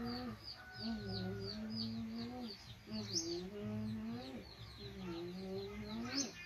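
A woman humming in long, level, held notes, about four phrases of a second and a half each. Small birds chirp rapidly and steadily in the background.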